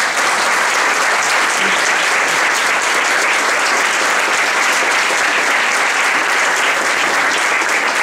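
Audience applauding steadily.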